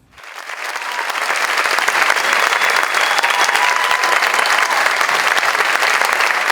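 Audience applauding, starting right away and swelling over the first couple of seconds into steady, loud clapping.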